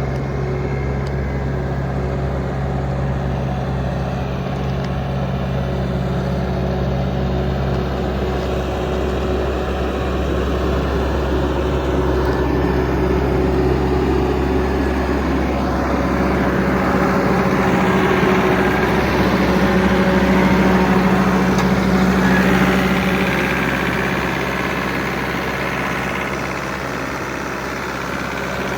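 Bobcat T550 tracked skid steer's four-cylinder turbo diesel running steadily. Past the middle the sound grows louder and busier for several seconds, then eases back toward idle.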